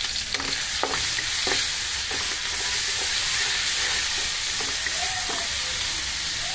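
Garlic and chopped tomato sizzling in hot oil in a metal wok while a wooden spatula stirs and scrapes through them, with a few sharp knocks of the spatula against the pan, mostly in the first half.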